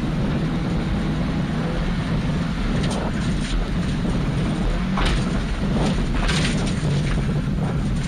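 Inside the cabin of a Subaru Impreza rally car at speed on a gravel stage: steady engine and road noise, with a few sharp knocks about three, five and six seconds in as the car goes over crests and rough ground.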